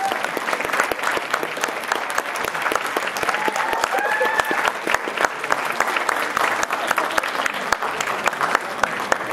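Audience applauding steadily, with a few voices calling out over the clapping about three to four seconds in.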